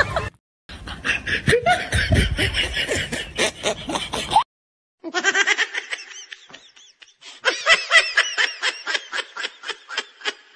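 Rapid rhythmic laughter, 'ha-ha-ha' pulses several times a second, in three separate stretches that each start and stop abruptly with short silences between.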